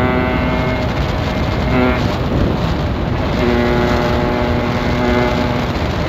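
Yamaha RX-King's two-stroke single-cylinder engine held at a steady high pitch at speed, with wind rushing over the microphone. The engine note drops away about a second in, blips briefly, and comes back steady from about three and a half seconds.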